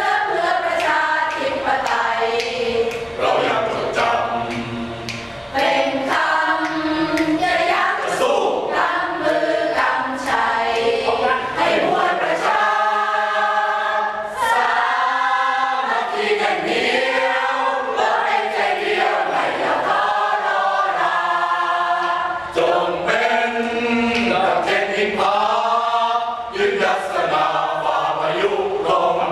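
Mixed choir of men and women singing together, unaccompanied.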